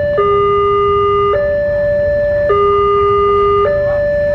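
Railway level-crossing warning alarm sounding: an electronic two-tone signal alternating between a low and a higher note, each held about a second, warning that a train is about to pass.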